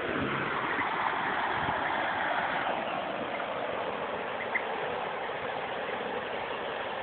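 River water running over a shallow riffle among snags: a steady rush, with one small click about four and a half seconds in.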